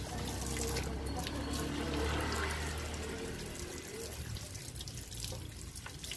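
Water from a garden hose running steadily and splashing onto a Doberman puppy's wet coat and the muddy ground.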